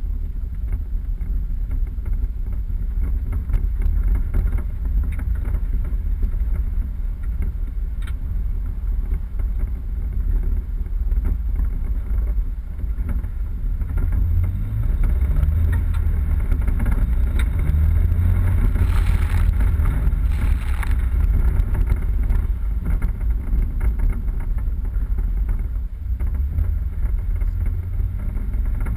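A 4x4 vehicle driving off-road: a steady low rumble of engine and tyres with wind buffeting the microphone, growing louder about halfway through and loudest about two-thirds in.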